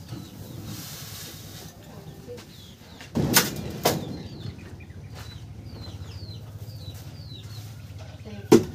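Sharp knocks from the shovel and the steel hollow-block mold: two a little after three seconds in and another near the end. In between, a small bird chirps repeatedly over a low steady hum.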